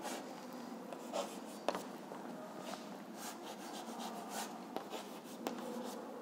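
Chalk scratching across a blackboard in short, intermittent strokes as zigzag resistor symbols are drawn, with a few sharp taps of the chalk against the board.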